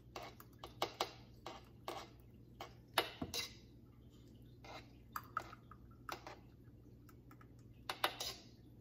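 A metal spoon scraping and clinking against a stainless steel bowl and glasses while spooning out thick strawberry purée: faint, irregular clicks and scrapes.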